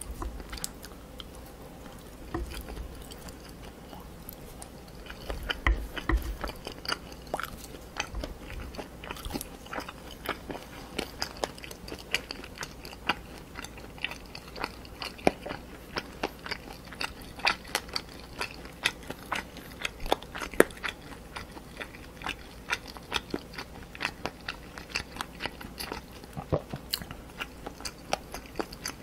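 Close-miked chewing of crunchy cartilage from a spicy stir-fried dish, a quick run of sharp crunches and clicks that grows dense from about five seconds in.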